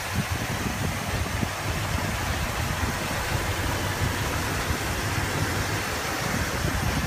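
1967 Ford Galaxie 500's freshly rebuilt 390 FE big-block V8 idling steadily, heard up close at the open engine bay: an even low pulse under a hiss.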